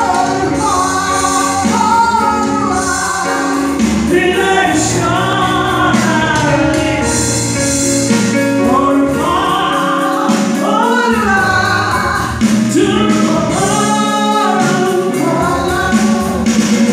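Gospel worship song sung by a woman and two men into handheld microphones and amplified over loudspeakers, with long held notes.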